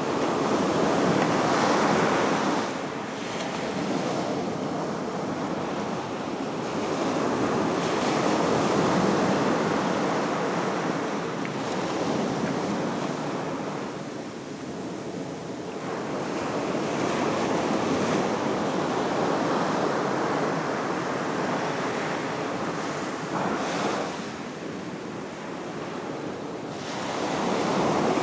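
Ocean surf breaking and washing up a sandy beach. It is a continuous rushing that swells and eases in slow surges several seconds apart.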